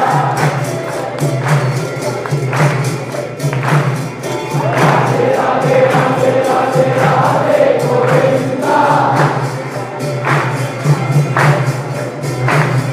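Devotional aarti singing by a group of voices, with jingling hand percussion keeping a steady beat.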